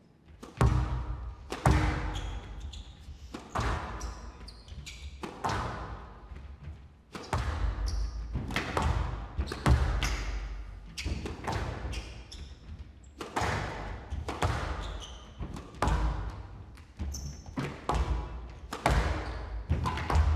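Squash rally: the ball cracks off rackets and walls about once a second, each hit ringing on in a large hall, with short high squeaks of court shoes between hits.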